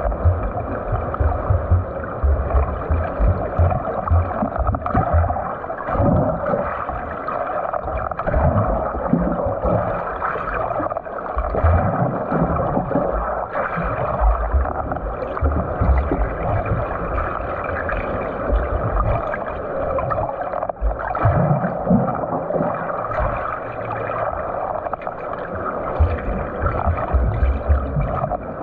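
Water churning and splashing from a swimmer doing butterfly stroke, with irregular low thumps as the arms and kick strike the water, and a faint steady high tone throughout.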